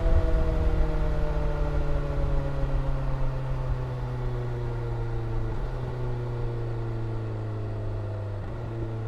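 BMW S1000R's inline-four engine slowing off the throttle, its pitch falling slowly and steadily as it fades, with a low wind rumble that dies away over the first few seconds.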